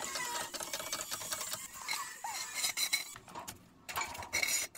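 Hydraulic floor jack being pumped by hand, a series of metallic clicks, lifting the front of a Land Rover Discovery 3. The clicking drops away briefly a little past three seconds in.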